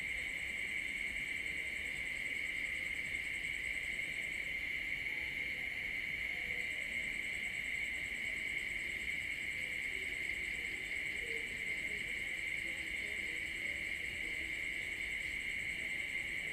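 Night insects, crickets, chirring steadily in several continuous high-pitched layers; the highest layer stops for a couple of seconds a few seconds in, then resumes.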